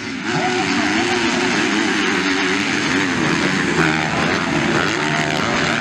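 250cc motocross bikes revving hard, the engine pitch rising and falling with the throttle. The sound jumps louder just after the start.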